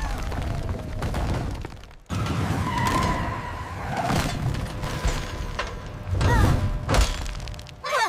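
Cartoon sound effects of a wall of big blocks and bricks collapsing: a dense crashing rumble with heavy thuds, broken off suddenly about two seconds in, with music underneath.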